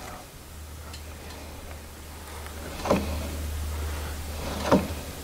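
Steady low hum from the Norwood LM portable sawmill's drive as it is turned over to test the re-tightened belt, with two short sharp clunks about two seconds apart. The drive belt has a cut in it.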